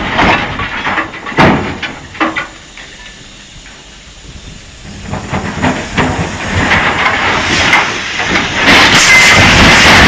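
Railway dump wagons clanking with several sharp metal knocks, then a rising, loud rushing crash near the end as a wagon tips over onto its side.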